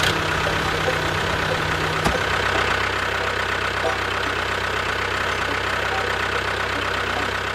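Mini tractor forklift's motor running with a steady drone; a click about two seconds in, where a low hum cuts out.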